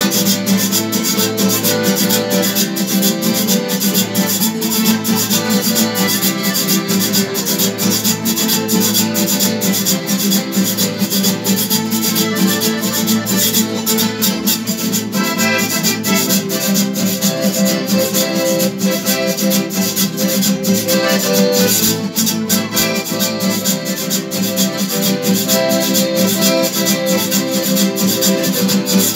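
Small live band playing: acoustic guitar strumming, a Hohner button accordion and a metal scraper (güiro) keeping a steady scratching beat.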